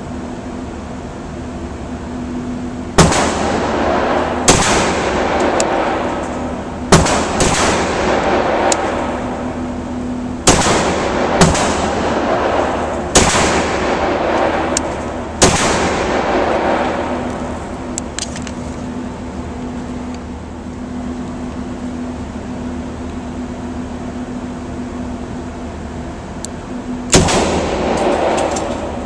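A 9mm semi-automatic pistol fired one shot at a time, a second or two apart, about six shots in the first sixteen seconds. Each shot has a long echo off the concrete walls of an indoor range. After a pause of about ten seconds, a single shot from a .38 Special revolver comes near the end.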